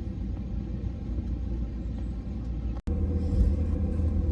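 Steady low cabin rumble of an Airbus A320 airliner taxiing, heard from inside the cabin. There is a brief dropout near the end as the recording is cut, and after it the rumble is a little louder, with a faint steady hum.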